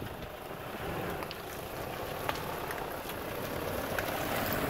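Toyota Hilux pickup crawling over a rutted dirt track, its engine running at low speed, with dry leaves and clods crackling under the tyres. It grows slowly louder as the truck draws closer.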